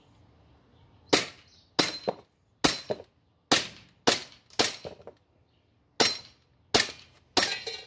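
Green-gas airsoft Glock 18C pistol firing single shots in semi-auto, about nine sharp cracks at irregular intervals with a pause in the middle. Several shots are followed a fraction of a second later by a smaller sharp tap of a BB striking the Texas Star target.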